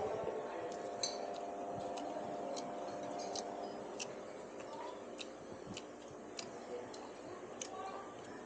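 Light, irregular clicks and taps of eating utensils against a bowl, roughly one every half-second to second.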